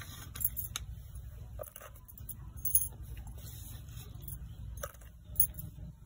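Peeled garlic cloves dropped by hand into a stainless-steel mixer-grinder jar: a scatter of light clicks and taps, over a steady low background rumble.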